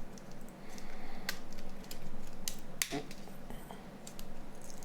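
Scattered light clicks and taps of small plastic phone parts being handled and pried apart during the teardown of a Nokia 9210 display assembly, over a steady low hum.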